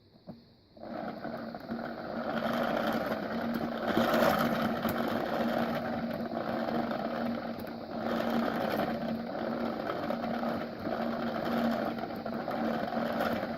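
3D-printed plastic step-up gear train driving a propeller fan at high speed, the gears and blades making a steady whirring hum. It starts about a second in, swells and eases as the input is turned, and stops near the end.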